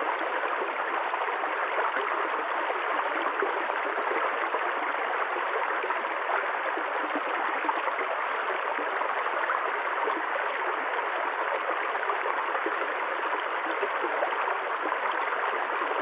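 Running water flowing steadily, an even, unbroken rushing.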